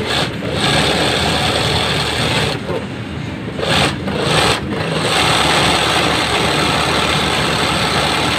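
Industrial sewing machine running steadily as its needle stitches a logo onto a cap guided by hand, stopping briefly a few times around three to five seconds in.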